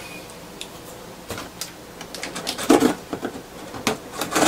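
Small clicks and taps of a knife being handled over a cardboard box, with a louder knock a little past halfway. Near the end the blade starts slitting the packing tape on the box, a scraping, tearing noise.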